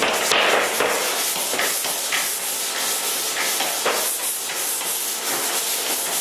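Drywall pole sander with 100-grit paper rubbing over a dried joint-compound butt joint, a scratchy hiss in a run of uneven strokes. It is the rough sanding that knocks down lumps and edges before the final coat of mud.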